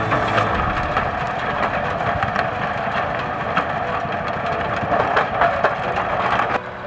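Hitachi Zaxis 240N excavator working under load as its bucket tears a stump and roots out of the ground, the engine and hydraulics running with repeated cracks and snaps of breaking roots and wood. The sound drops away abruptly near the end.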